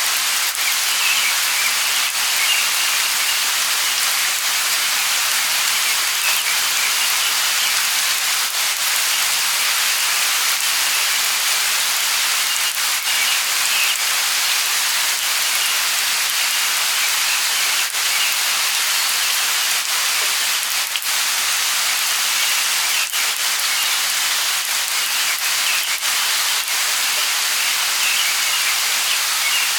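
Light rain falling steadily: an even hiss with scattered drop ticks.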